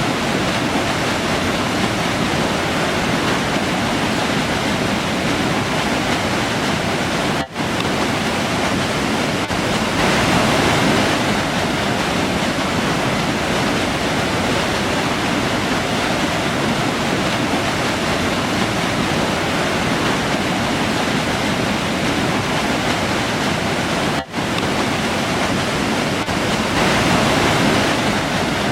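River water rushing steadily over rocks, a dense even noise of flowing water. It drops out for an instant twice, about a third of the way in and again near the end.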